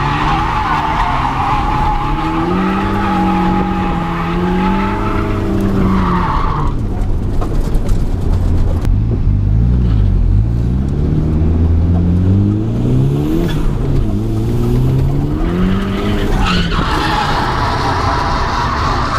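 Nissan S13's turbocharged SR20DE engine heard from inside the cabin, revving up and down repeatedly while drifting. Tyres squeal through the first six seconds or so and again near the end.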